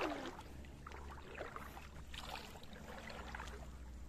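Shallow seawater sloshing in a few soft swishes over a steady low rumble.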